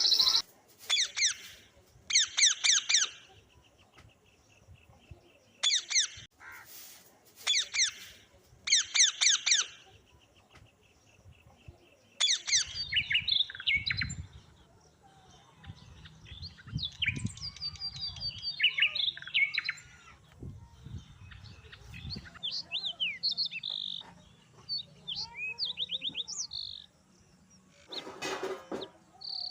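Birds singing and chirping: short phrases of rapid, high, sweeping notes repeated every second or two, then a looser mix of varied chirps.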